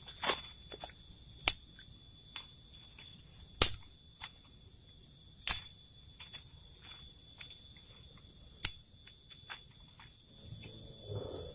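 Sharp knocks and snaps at irregular intervals, over a steady high-pitched insect drone from the forest.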